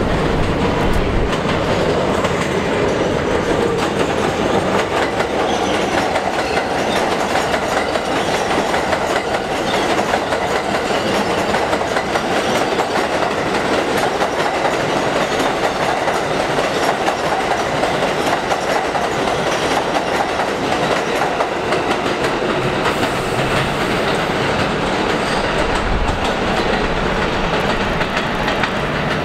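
New York City Subway 7 trains running on elevated steel track: a steady rumble with a constant clatter of wheels over the rails.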